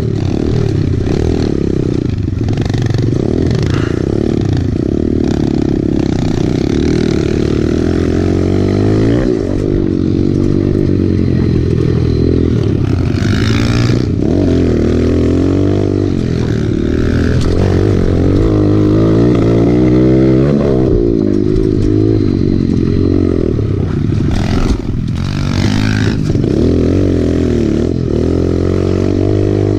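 Kawasaki KLX110 pit bike's small four-stroke single-cylinder engine running under the rider on a dirt trail, its pitch rising and falling again and again as the throttle is worked through corners and bumps.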